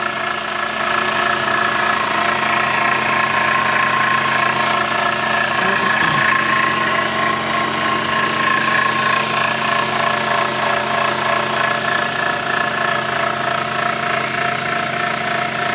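Toyota NZ-series (1NZ/2NZ) four-cylinder petrol engine idling steadily, with a crackling, rustling noise from the alternator area of the belt-driven accessories. The owner has ruled out the VVT-i coupling, because the noise stays with it taken out of the picture, and the cause is still unknown.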